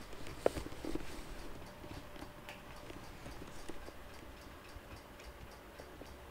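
Faint room tone with a steady hum and a regular ticking. A sharper click comes about half a second in.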